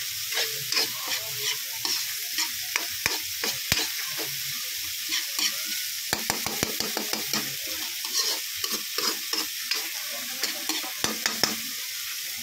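Spatula stirring and scraping chopped spring onion and red chili in a hot wok: irregular scrapes and taps of the spatula on the pan over a steady frying hiss.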